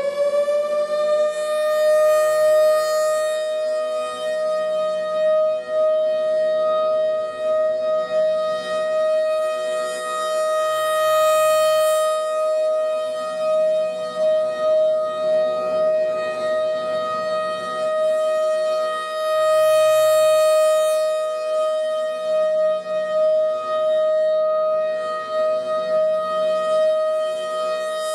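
Civil defense warning siren holding one steady tone, the steady alert signal, with loudness swelling and easing about every nine seconds.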